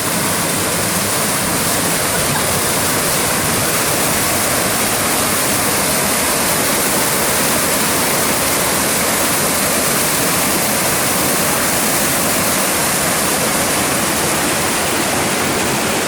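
Steady, loud rushing of water, as of a waterfall or fast stream.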